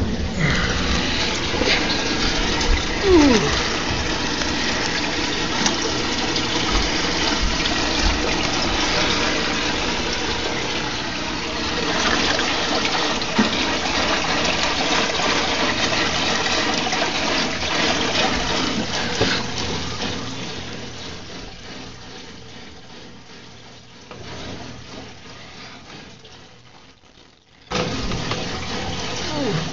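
Water splashing and churning in an aquarium: a steady rushing wash that fades away over several seconds and comes back suddenly near the end.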